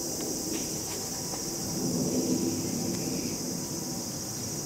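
Steady high-pitched chirring of insects, with a low rumble that swells briefly about two seconds in.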